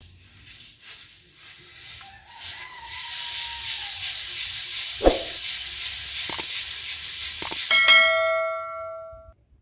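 Wheat grains rushing and rustling in a large metal basin as it is scooped through the pile and shaken, with a few sharp knocks of the basin. Near the end the basin rings like a bell after a knock, the ring dying away over about a second and a half.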